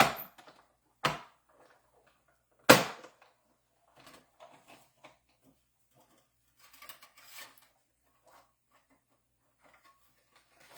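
Paper-crafting materials handled on a table: three sharp clacks in the first three seconds, the third the loudest, then soft rustling and small clicks of cardstock and thin metal cutting dies.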